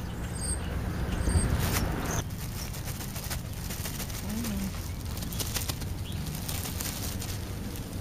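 Clear plastic bag rustling and crinkling close to the microphone as food is shaken out of it onto a pile on the ground, over a steady low rumble.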